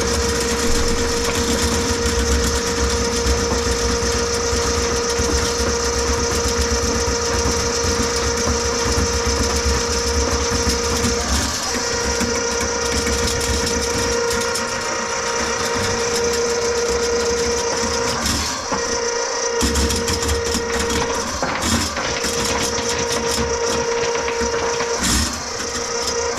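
Electric drain-cleaning machine running steadily, its motor and spinning cable making a steady whine over a noisy hum, as it works through a grease clog in a kitchen drain line. The tone breaks off briefly several times in the second half.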